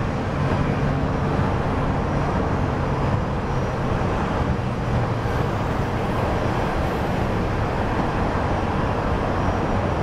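Boeing 737-800's CFM56-7B turbofan engines running at low taxi power as the jet rolls by: a steady whooshing noise with a low hum underneath.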